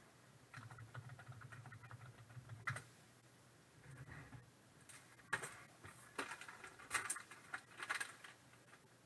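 Faint handling noise: light rustling and small sharp clicks as hands move plastic graded-card slabs and slide one out of a white sleeve, with the clicks coming more often in the second half.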